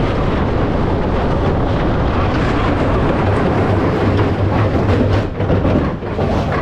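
Schwarzkopf steel roller coaster train running along its track, heard from on board: a loud, steady rumble of the train with wind rushing over the microphone.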